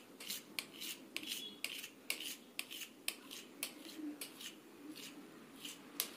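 A kitchen knife cutting a quick run of lines through thin parotta dough, each stroke a short faint scrape and tap of the blade on the stone countertop, a few strokes a second.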